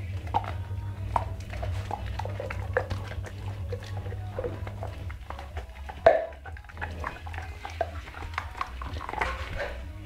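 American Pit Bull Terrier chewing and gnawing a meaty bone: irregular crunches and clicks of teeth on bone, with one louder crunch about six seconds in.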